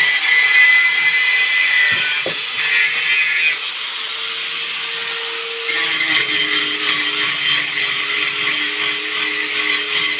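Power tool, likely an angle grinder, working on steel: a steady gritty hiss over a high whine, which shifts about three and a half seconds in and again near six seconds.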